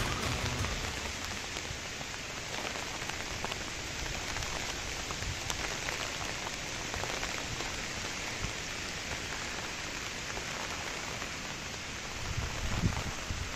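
Rain falling steadily on the Campout Neptün 3 tent's flysheet: an even hiss with scattered single drop taps, and a low rumble near the end.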